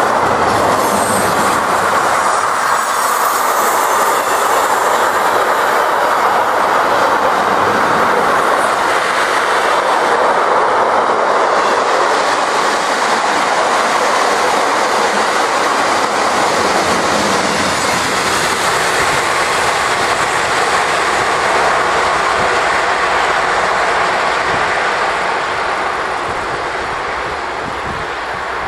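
Freight train of loaded double-deck car-carrier wagons, hauled by an electric locomotive, rolling past at close range: a steady wheel-and-rail noise with the clatter of the wagons. It fades in the last few seconds as the end of the train draws away.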